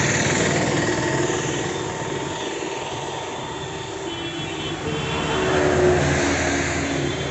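Highway road traffic passing close by: engine and tyre noise swelling and fading as vehicles go past, with the loudest pass about six seconds in.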